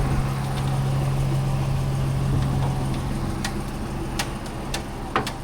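Engine idling steadily with a low, even hum, easing slightly in the second half, with a few sharp clicks near the end.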